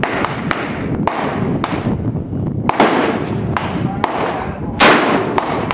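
A string of rifle shots from a 5.56 gas-piston AR-15, about eight sharp cracks spaced a half second to a second apart, each trailing off in echo; the loudest comes near the end.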